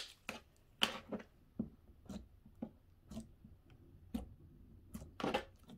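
Hands squeezing and stretching a very gooey, moist slime, giving faint, irregular sticky clicks and pops.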